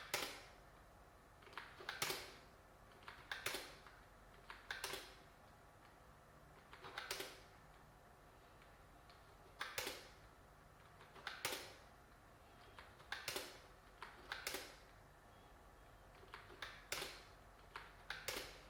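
Clicks and short scrapes of small computer parts and case hardware being handled and fitted during a mini PC assembly, arriving irregularly about one to two seconds apart, some in quick pairs.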